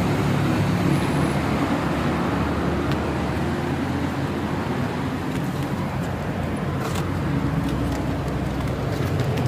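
Steady low hum of an engine running, with road-traffic noise.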